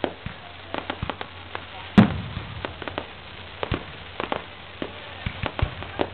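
Fireworks going off: a string of irregular sharp pops and crackles, with one loud bang and low boom about two seconds in.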